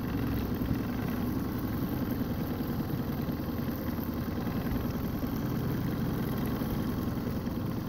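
Outboard motor on a fishing boat running steadily as an even low hum.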